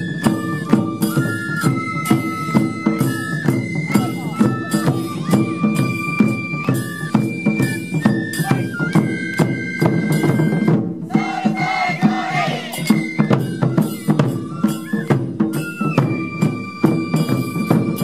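Japanese taiko ensemble playing: several shinobue bamboo flutes carry a held, stepping melody in unison over a steady, driving beat of taiko drums. The flute line breaks off briefly about two-thirds of the way through, then returns.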